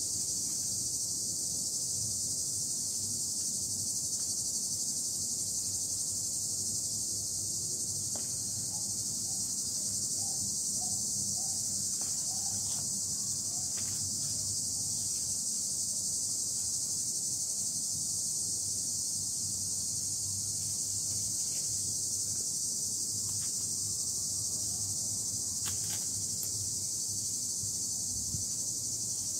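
A steady, high, continuous chorus of insects, typical of crickets, that neither starts nor stops. A few faint short chirping notes come through about ten seconds in.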